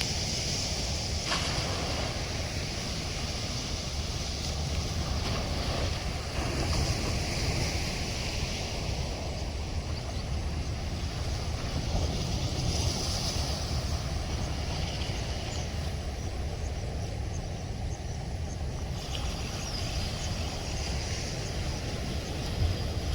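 Steady rush of heavy floodwater at a dam, with wind buffeting the microphone.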